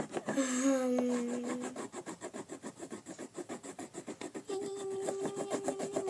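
Wax crayon scribbling on paper in quick, regular back-and-forth strokes, a dry rasping rub. A child hums over it: a low held note about half a second in, then a higher held note from about two-thirds of the way through.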